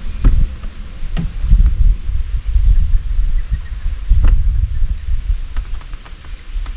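Low, irregular rumbling buffeting on the microphone, with a few sharp knocks. Above it, a bird repeats a short, high, falling call about every two seconds.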